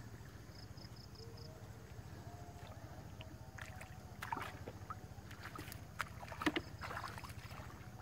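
A boat engine drones steadily out on the river, low and finely pulsing. A short run of high chirps comes about half a second in, and a few sharp knocks follow from about four seconds on, the loudest near the end.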